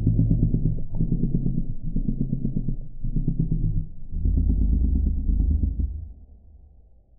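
Cartoon audio slowed down sixteen times, stretched into deep, rumbling low tones that come in pulses about a second long and fade out about six seconds in.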